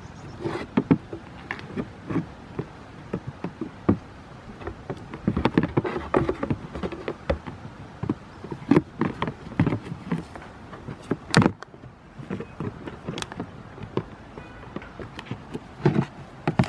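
Irregular knocks and taps from young goats scrambling on hollow plastic step platforms and butting heads, with one sharper knock about two-thirds of the way through.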